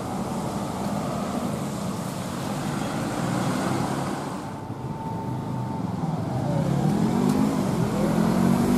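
Road traffic: cars passing on a wet road with a steady tyre hiss. From about two-thirds of the way in, a vehicle's engine rises in pitch as it accelerates, growing louder.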